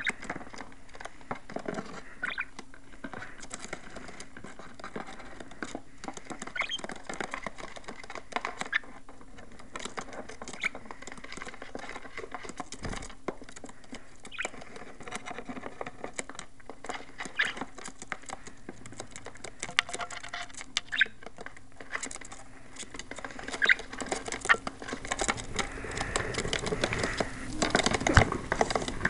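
Pet budgies scratching, tapping and shuffling about, making a steady patter of small irregular clicks that grows busier and louder near the end.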